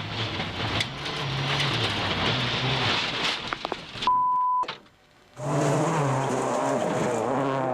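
World Rally Championship rally car engine running hard under load, with a haze of tyre and road noise. About four seconds in, a short steady beep and a moment of near silence break it, then another rally car engine comes in, its pitch wavering as it revs up and down.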